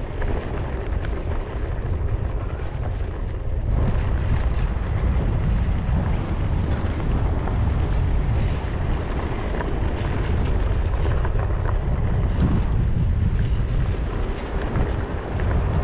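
Wind buffeting the microphone while riding, a steady low rumble, with the rolling noise of tyres over sand and dirt underneath.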